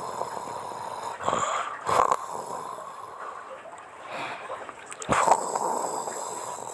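A woman snoring: rough, noisy breaths with stronger snores about a second in, around two seconds in, and a longer one about five seconds in.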